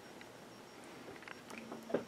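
Quiet room tone in a pause between speech, with a faint steady hum late on and one short soft click just before the end.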